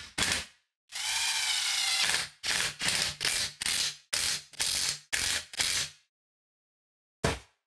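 Socket ratchet running the wheel bolts in: one long buzzing ratchet spin, then about eight short ratcheting strokes roughly every half second. A single sharp knock near the end.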